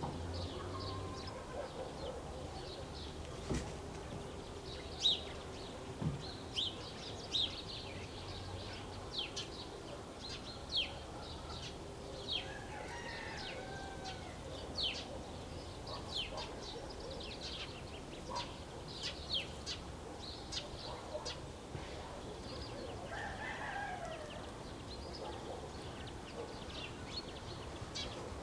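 Village birdsong: many short, sharp, falling chirps from small birds, repeated all through, with domestic chickens calling and a rooster crowing in the background, twice drawn-out calls about a third and four-fifths of the way in. A steady low rumble of wind sits underneath.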